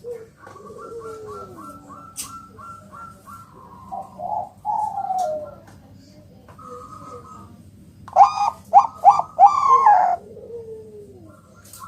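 Zebra doves (Bangkok-type perkutut) calling. A quick run of short repeated notes is overlapped by a lower falling coo. Falling coos follow, then a louder burst of several notes about eight seconds in.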